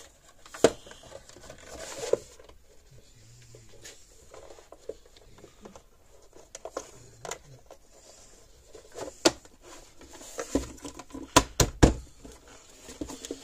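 Scattered clicks, taps and knocks of hand tools and small parts being handled on a workbench, with a quick cluster of sharp knocks a little before the end.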